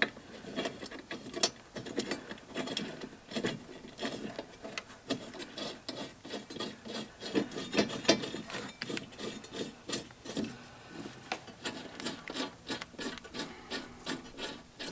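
Blade bolts being threaded in and run down on a Honda HRX217 mower's new twin-blade set: metal scraping and rubbing with many quick clicks, coming faster near the end.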